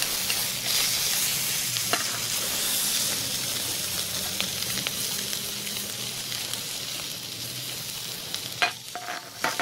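Italian sausages sizzling in hot fat in a skillet over a gas burner, a steady frying hiss. Near the end come a few sharp clicks of metal tongs against the pan.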